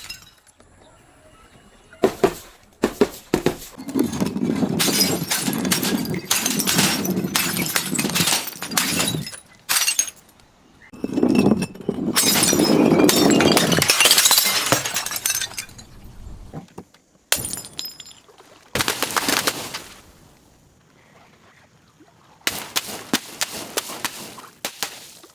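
Glass being crushed and shattering: runs of sharp cracks, clinks and crunching in several bursts, with short quieter pauses between them.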